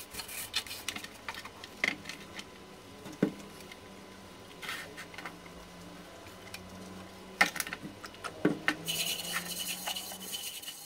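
Light metal clicks and knocks from a corroded, corrugated metal gas mask canister and its hinged lid being handled, with scraping and rubbing that grows denser near the end.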